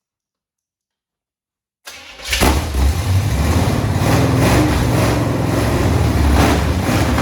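Silence, then about two seconds in the 1977 Chevrolet C20's 454 big-block V8 catches after a brief moment and runs loud and steady.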